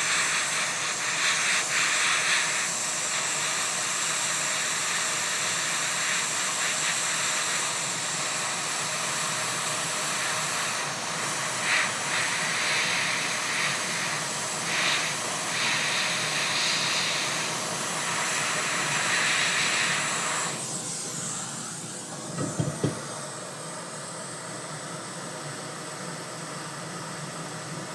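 Hot-air heat gun blowing a steady hiss onto a soldered connector to melt it free. About 20 seconds in the air noise drops to a quieter hiss, and a couple of short low knocks follow.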